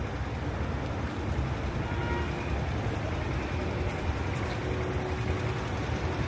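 Street traffic: several cars idling and creeping past at close range, a steady low rumble of engines and tyres. A faint steady hum joins in about a third of the way through.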